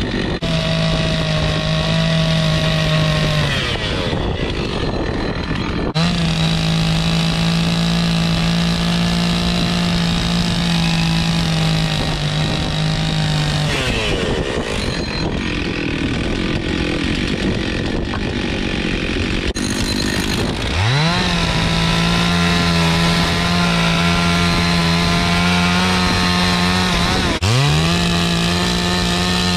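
Two-stroke gas chainsaw cutting through dry logs. The engine revs up to full throttle and holds a steady high pitch through each long cut, then drops back between cuts, with a longer lull in the middle and a brief dip just before the end.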